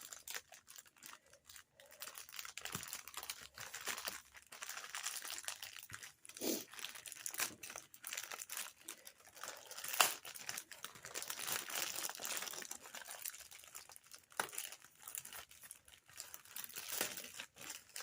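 Packaging crinkling and rustling as it is handled and opened, with scattered sharper crackles; the loudest comes about ten seconds in.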